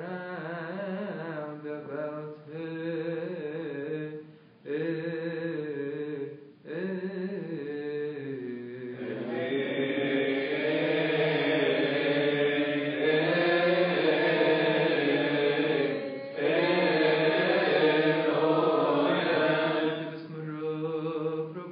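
A man chanting a Coptic Orthodox liturgical hymn in a slow melodic line. About nine seconds in the chant grows louder and fuller.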